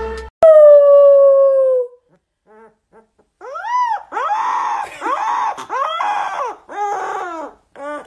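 A black-and-tan puppy howling: a run of high calls, each rising and then falling, one after another from about three seconds in. Before it comes one long, loud held cry that slides slightly downward for about a second and a half.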